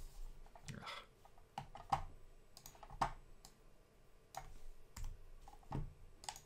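Quiet, scattered clicks of a computer mouse and keyboard at an irregular pace, about a dozen of them, over a faint steady hum.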